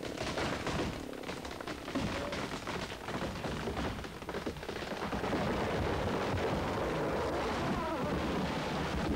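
A tall rainforest tree being felled and coming down: many sharp cracks and snaps of splitting wood and branches, then from about five seconds in a louder, continuous rush of crashing branches.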